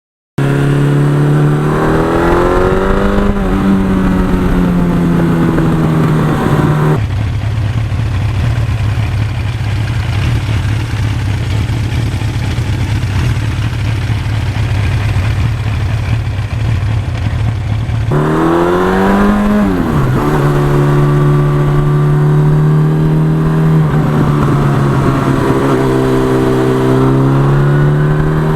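The air-cooled inline-four engine of a 1982 Suzuki GS1100E motorcycle under way. It climbs in pitch as it accelerates and drops back at each gear change, with a steadier stretch of cruising in the middle.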